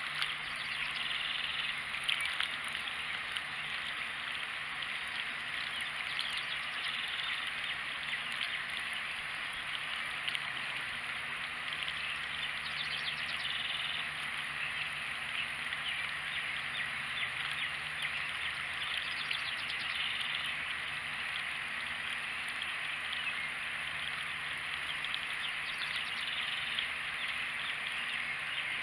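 Water running steadily from a garden hose into a plastic watering can and spilling over into a puddle, with a cat lapping at the water at the top of the can in spells of quick wet ticks.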